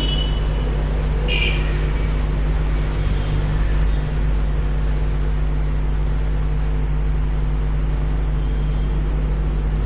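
Steady low hum with a hiss over it, holding level throughout, with a brief faint higher sound about a second and a half in.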